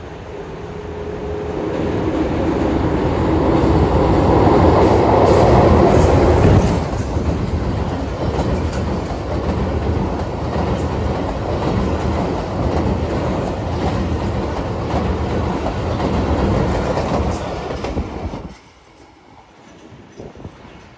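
Diesel locomotive approaching and running onto a steel girder railway bridge, growing louder over the first six seconds, then passenger coaches rolling past with a clickety-clack of wheels over the rail joints. The sound drops away suddenly near the end.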